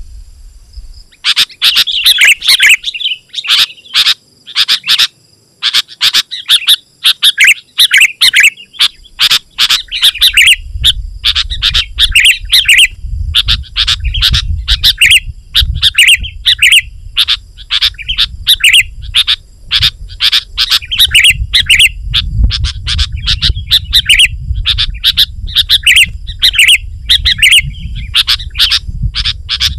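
Sooty-headed bulbul singing in dense, rapid chattering phrases of sharp notes, the busy 'gacor' song used to challenge a rival and lure wild bulbuls. A low rumble runs beneath from about a third of the way in.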